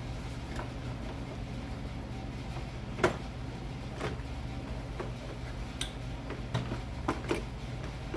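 Scattered small clicks and knocks of hands working with tools and small parts during a wiring and light install, the sharpest about three seconds in, over a steady low hum.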